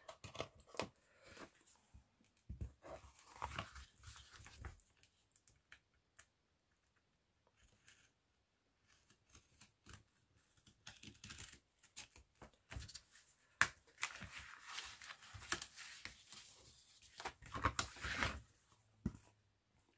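Hobby knife slicing through the paper and glued binding along the spine of a small hardcover children's book, scratchy cuts coming in irregular bursts with paper rustling as the pages are handled.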